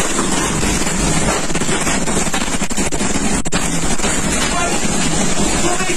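Tornado wind blowing steadily and loudly against a house, heard from inside, with flying debris. There are a few sharp knocks about three and a half seconds in.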